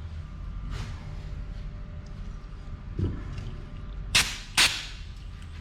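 Two short sprays of degreaser, about half a second apart, with a soft knock shortly before them.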